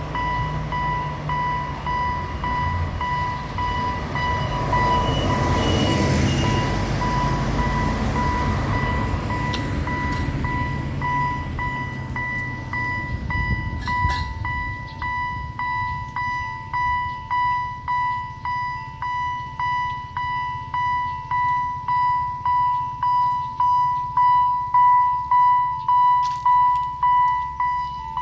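Level-crossing warning bell dinging in an even, repeating rhythm of about one and a half to two strokes a second, growing louder toward the end. Over the first dozen seconds an Alishan Forest Railway train passes with a low engine rumble and wheel noise, which fades out about twelve seconds in.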